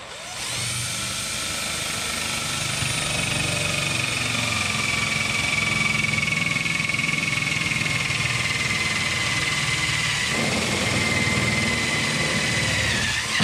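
Cordless drill driving a self-tapping screw through a sheet-metal patch panel, the motor running for about thirteen seconds under load. Its whine slowly falls in pitch as the screw works through the metal, then cuts off suddenly.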